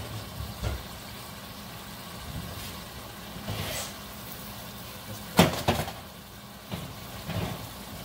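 An oven door being opened and a pan of roasted bell peppers taken out, with a sharp metal clank about five and a half seconds in and a few lighter knocks after it, over a low steady hum.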